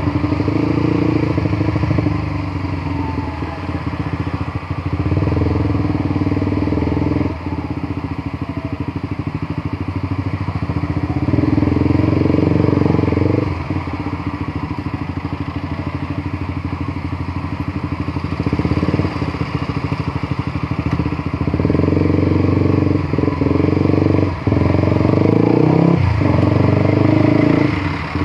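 Honda CBR150R single-cylinder motorcycle engine running while riding. The throttle is eased off twice, about a quarter and half way through, and opened up again in between and toward the end.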